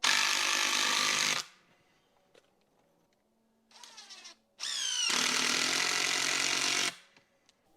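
Handheld power tool running in two bursts: a short run at the start, then after a brief quieter blip it spins up with a rising whine and runs for about two seconds before stopping.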